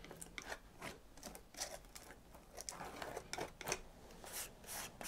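Faint, irregular brushing and scraping strokes of a paintbrush working thick acrylic paint through a stencil onto the painting surface.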